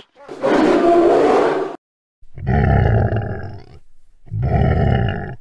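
Three loud, harsh animal roars in a row, each one to one and a half seconds long, with short silent gaps between them.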